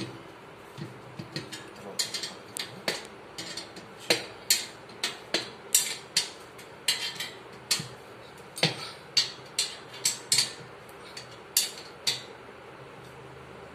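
Sharp metal clinks and knocks of a hand tool working on the cast-iron frame of a Merritt treadle sewing machine stand. They are irregular, about two a second, each ringing briefly, and stop near the end.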